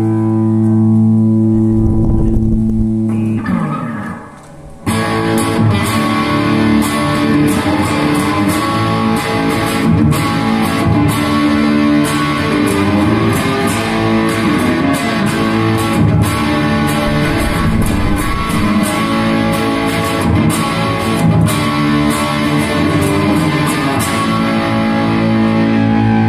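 Dean ML Dime O'Flame electric guitar played through a Bugera 6262 Infinium amp on its crunch channel, a distorted tone. A held chord rings and dies away about four seconds in, then comes a long run of riffs and chords, ending on another held chord near the end.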